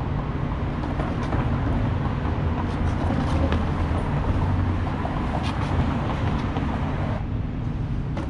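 Street traffic: a vehicle's low rumble that swells through the middle and partly falls away near the end, with a few light clicks.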